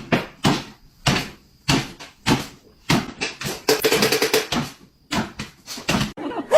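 A rapid, irregular series of knocks and thumps, well over a dozen, with a short pause around five seconds in.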